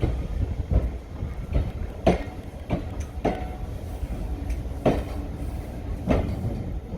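Heritage diesel train running, its wheels clacking irregularly over rail joints above a constant low rumble.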